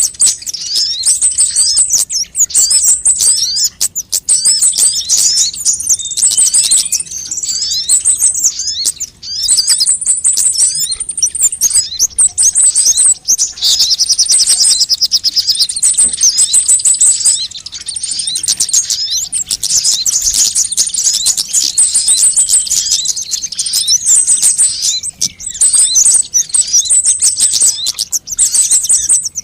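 Sunbirds calling on a bird-lure recording: a dense stream of high, fast chirps and thin trills, almost without pause.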